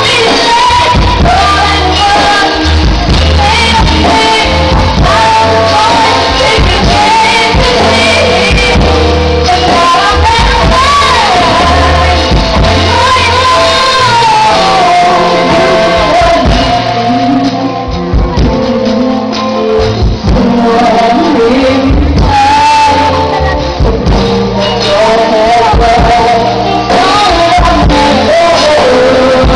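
A woman singing a ballad live into a microphone, backed by a live band through a PA. The accompaniment thins out briefly a little past the middle, then fills in again.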